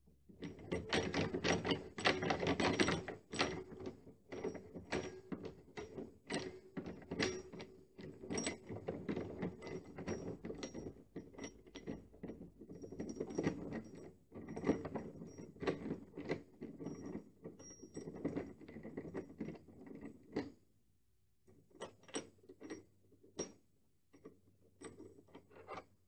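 Cut-glass door knob being turned by hand to unscrew it from its threaded spindle, its grub screw backed off: a rapid, uneven run of small clicks and rattles for about twenty seconds, thinning to a few scattered clicks near the end.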